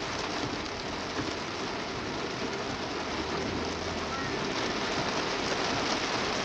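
Heavy rain falling on a car, heard from inside the cabin as a steady hiss.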